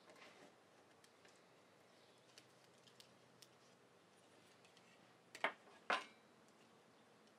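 Utility knife scoring thin wood veneer along a steel straightedge: faint scattered ticks, then two sharp clicks about half a second apart a little past the middle.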